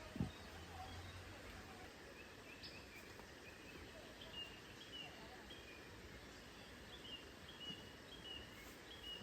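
Faint bird chirping in the forest: short high chirps repeating every second or so over a quiet, steady background hush. A single low thump sounds about a quarter second in.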